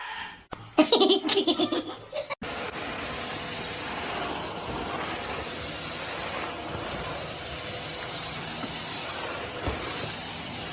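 A short burst of voiced, laugh-like sound, then a steady even hiss that carries on unchanged for the rest of the time.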